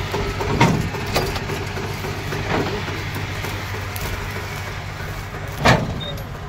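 Tractor diesel engine idling steadily while a trailer is uncoupled from its hitch. Several sharp knocks from the hitch are heard, the loudest near the end.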